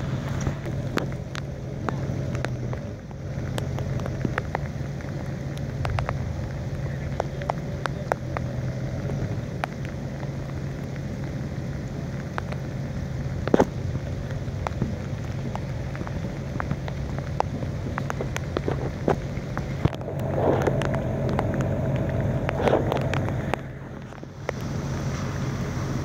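Steady rain falling, with close drops ticking sharply over the hiss, over a low steady hum. About twenty seconds in, a louder stretch lasts a few seconds.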